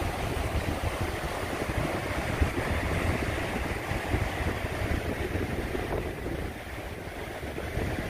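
Strong wind buffeting the microphone in uneven low rumbles, over the steady wash of ocean surf.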